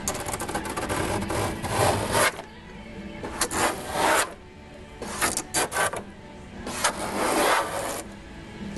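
Hand sanding or scraping on the car's bodywork: four rasping strokes of about a second each, with short gaps between.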